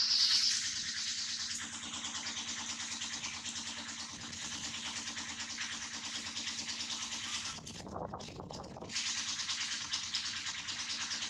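A steady high buzzing insect chorus with a rapid pulse. It breaks off for about a second around eight seconds in, while a lower rushing noise takes its place.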